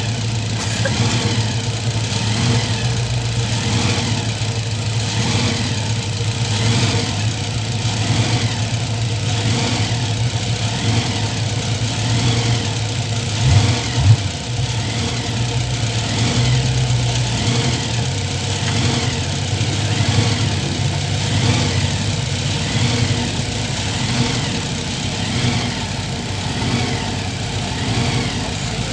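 An engine idling, with an even, slow rise and fall about every second and a brief louder surge about halfway through.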